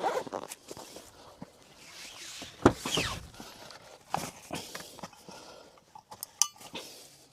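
Irregular rustling, footsteps and knocks of a person moving about and handling things, with one loud sharp knock a little under three seconds in and a short rapid rattle near the end.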